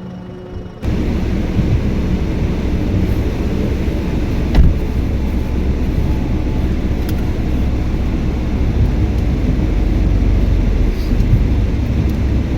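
Steady low rumble of road and engine noise inside a moving car, with a single knock about four and a half seconds in.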